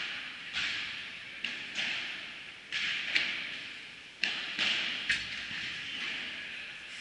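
Padel balls being struck and bouncing: irregular sharp knocks, about eight in seven seconds, each echoing in a large indoor hall.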